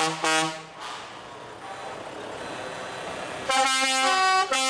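Truck's multi-note musical air horn playing a tune in quick stepped notes. It stops for about three seconds, leaving the noise of a truck passing close by, then plays again near the end.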